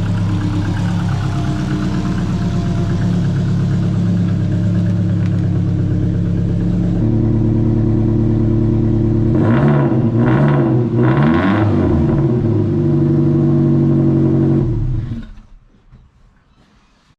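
Subaru Forester's flat-four engine running in a garage on its first start in a long time: a steady idle that steps up slightly about seven seconds in, three quick blips of the throttle, then the engine is switched off and runs down near the end.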